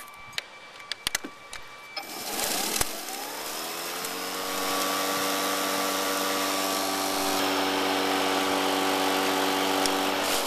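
A few clicks, then a Greenworks 80-volt battery lawn mower's electric motor starts about two seconds in. Its whine rises in pitch as the blade spins up, then holds steady at running speed.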